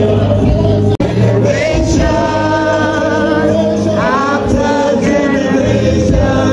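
Gospel music: a choir singing over a steady bass accompaniment, breaking off for an instant about a second in.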